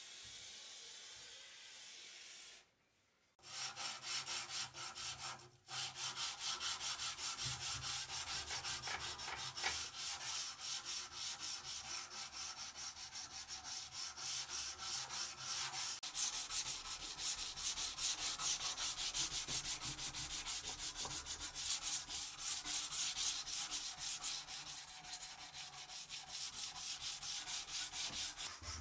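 Steel dagger blade clamped in a vise being hand-sanded with sandpaper in quick back-and-forth rubbing strokes, starting about three seconds in and running on with one brief pause. A short steady hiss comes before it.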